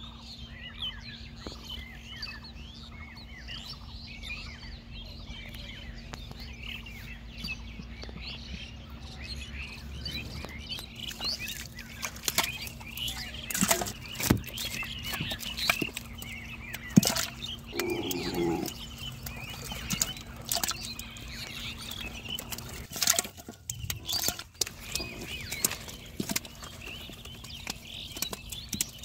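Small birds chirping over and over, joined from about twelve seconds in by sharp slaps and splashes of catfish thrashing in shallow water inside a mud trap.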